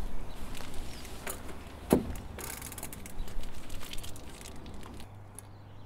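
A bicycle being stood against a wooden wall: light clicks and rattles, with one sharp knock about two seconds in.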